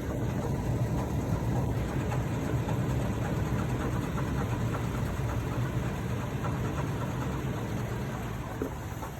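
2014 Toyota Tacoma engine idling with a clunking from the AC compressor clutch: the clutch and coil have partly melted and gone bad.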